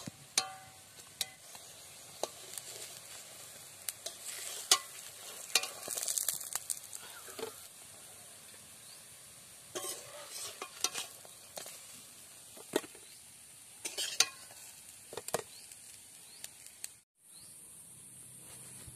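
Banana-stem fritters sizzling in oil in a metal kadai, with a metal spatula clicking and scraping against the pan as they are turned. The frying sound cuts off abruptly near the end.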